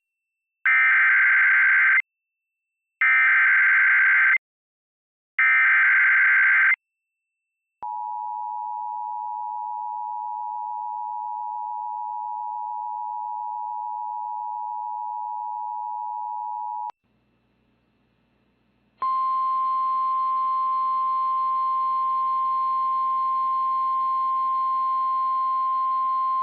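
Emergency Alert System broadcast alert for a severe thunderstorm warning: three short bursts of warbling SAME digital header data, then the two-tone EAS attention signal held steady for about nine seconds. After a short pause, a buzzier steady tone near 1 kHz starts about 19 seconds in.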